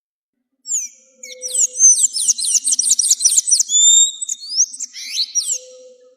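An azulejo singing: a rapid run of high whistled notes, each sweeping downward, then a few longer whistles, starting just under a second in.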